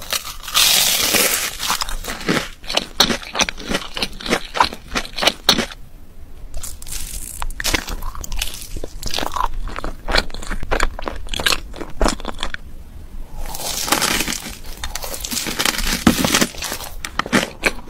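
Close-miked eating: crisp crunching bites and chewing of a panko-crumbed fried sushi roll and other foods. Dense crunching comes about half a second in and again around fourteen seconds in, with sparser clicks and chews between.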